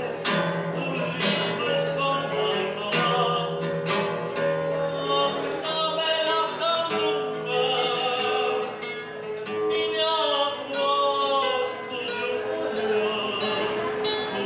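A man sings a Latin American folk song into a microphone over acoustic guitar, in a live performance.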